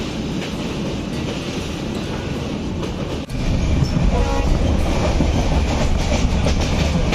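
Moving passenger train heard from its open doorway: a continuous rumble and rattle of the wheels and carriage, first while crossing a steel river bridge. After a cut about three seconds in it is louder and deeper, and a short horn sounds faintly about a second later.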